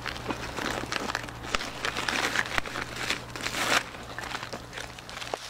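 Irregular crackling and rustling, with many small sharp snaps and a few louder rustling surges.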